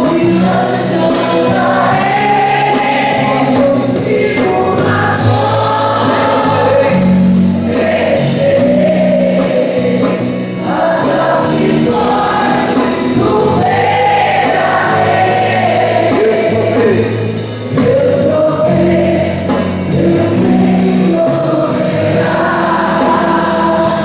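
A group of voices singing a Christian worship song over instrumental accompaniment.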